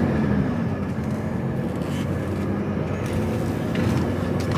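HGV lorry's diesel engine running steadily under way, heard from inside the cab, with a low engine drone and road noise.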